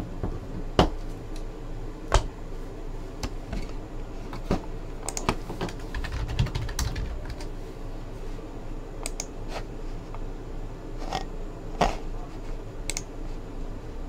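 Typing on a computer keyboard: scattered, irregular key clicks, with a couple of sharper clicks about one and two seconds in, over a steady low hum.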